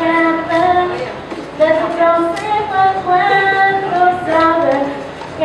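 A female voice singing a melody in held notes, phrase after phrase, with short breaks between phrases.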